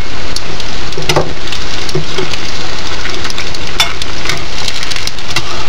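A stuffed pizza dough frying in hot oil in a pan, sizzling and crackling steadily, with occasional taps of metal spoons turning it in the oil.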